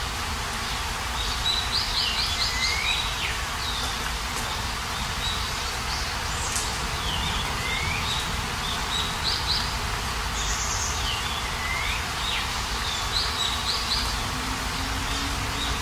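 Steady rain falling, with a songbird singing a short phrase of quick high notes ending in a lower slurred note, repeated several times.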